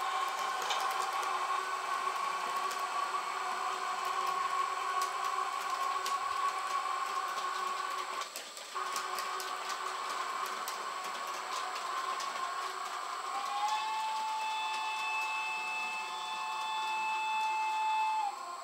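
Electric-train sound from an H0 model locomotive's sound decoder: a steady machine hum with faint clicking. About two-thirds of the way in, a clear held tone joins it and then cuts off suddenly near the end.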